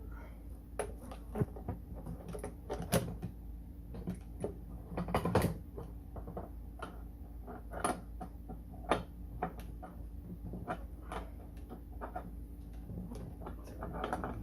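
Irregular clicks and knocks of metal hardware and plastic parts being handled while a wheel is fitted and its nut started on the axle of a ride-on toy truck, with the loudest knocks about three and five seconds in.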